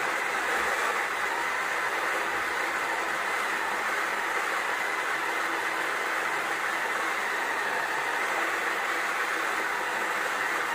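Small electric motor of a mini pottery wheel running at a steady speed while wet clay turns under the hands, an even whirring hiss.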